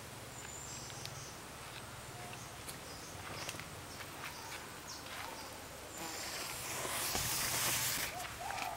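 Outdoor natural ambience with insects, scattered faint clicks and a steady low hum. A louder hiss swells about six seconds in and drops away near the end, with a few short bird chirps.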